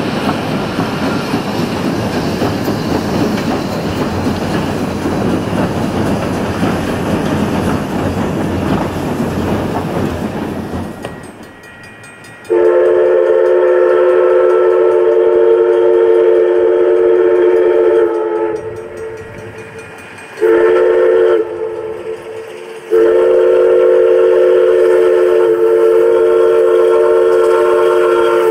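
Steady rushing rolling noise of the train crossing a trestle bridge. Then, about halfway through, Essex Terminal 9's steam whistle blows for a road grade crossing: a long blast of several steady tones sounding together, a short blast, then another long one.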